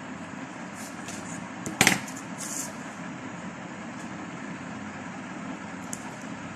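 A plastic bottle cap and a metal scissor blade being handled, with one sharp click a little under two seconds in and a few faint ticks, over a steady low hum.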